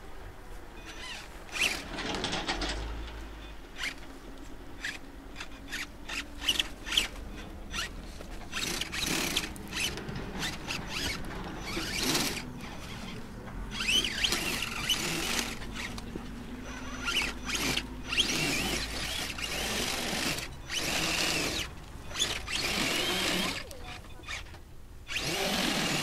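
Small electric motors of radio-controlled off-road model cars whining in short, irregular bursts of throttle, rising and falling in pitch.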